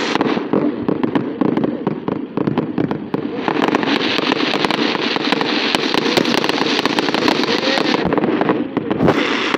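Aerial fireworks going off in a dense, continuous barrage of crackles and bangs, with a brief lull near the end.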